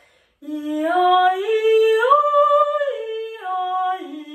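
A woman singing an arpeggiated octave exercise on one sustained vowel, stepping up note by note to the top, holding it, then stepping back down to the starting note. There is a light vibrato on the descending notes.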